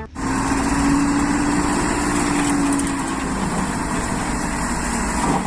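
Dump truck's diesel engine running steadily while its hydraulic hoist tips the loaded bed to unload soil. A steady hum sits over the engine noise and fades about three seconds in.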